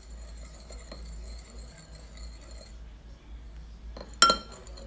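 Metal spoon stirring oil and food colouring in a small glass bowl, quietly at first, then one sharp clink of the spoon against the glass about four seconds in, ringing briefly.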